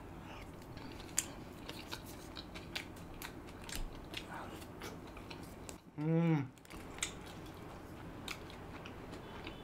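Close-miked chewing of tender chicken, with frequent wet mouth clicks and smacks. About six seconds in comes one short hummed "mmm" that bends in pitch.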